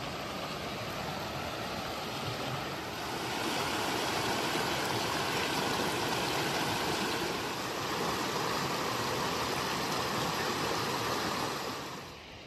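A mountain creek rushing and splashing over granite rocks in a steady wash of water noise. It grows louder a few seconds in as a small cascade comes close, then drops off sharply near the end.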